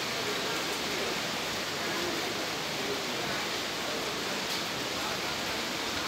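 Steady hiss of rain falling, even and unbroken.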